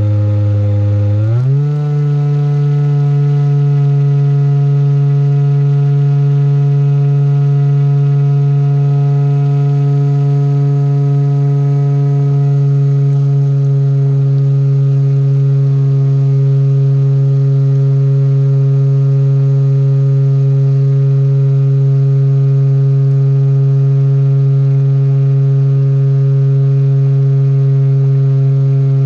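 RC airboat's Gartt brushless electric motor spinning its air propeller, a loud steady drone. The pitch rises quickly about a second and a half in as it throttles up, then holds level at cruising speed.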